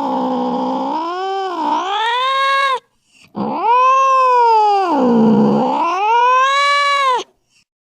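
Angry domestic cat yowling: a long drawn-out caterwaul that dips and rises in pitch and breaks off just under three seconds in, then after a brief pause a second long yowl of about four seconds that stops abruptly.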